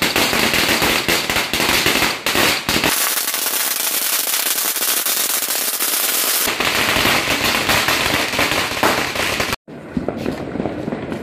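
Strings of firecrackers going off in a dense, rapid, continuous crackle of bangs. For a few seconds in the middle it sounds thinner, without its low end. About two-thirds through it cuts off for a split second, then carries on a little quieter.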